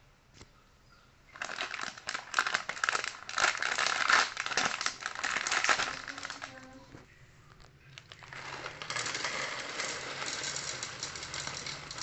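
Plastic cat-treat packet crinkling and rustling as it is handled, in a loud spell of crackly rustles for about four seconds, a short lull, then steadier rustling.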